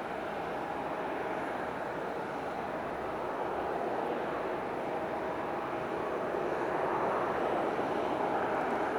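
Jet engines of a four-engine Airbus A340-300 airliner: a steady jet rumble with a faint whine, slowly growing louder.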